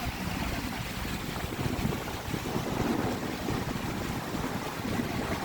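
Rushing water at a full-flowing lake outlet, a steady rough noise, with wind buffeting the microphone.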